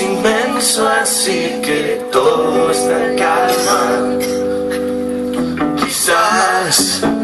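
Live band music: a man singing over guitar accompaniment.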